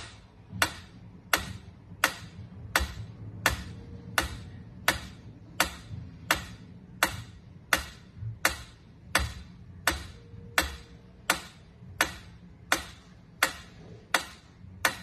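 Mechanical pyramid metronome ticking steadily, its swinging pendulum clicking about three times every two seconds.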